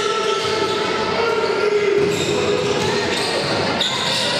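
Live basketball game sound in a sports hall: a basketball bouncing on the court, with players' and spectators' voices, echoing.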